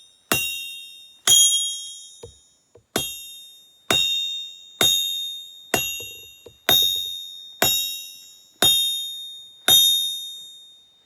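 Hammer blows on an anvil while forging, about one a second, each ringing out high and clear and dying away before the next.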